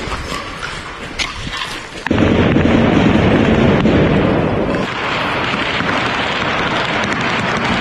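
Combat noise of gunfire and explosions: a few sharp cracks, then about two seconds in a sudden, loud, sustained rumble that carries on to the end.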